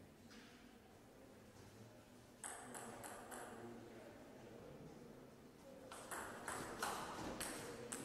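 Table tennis ball clicking: four quick bounces about two and a half seconds in, then a fast rally of bat hits and table bounces from about six seconds on.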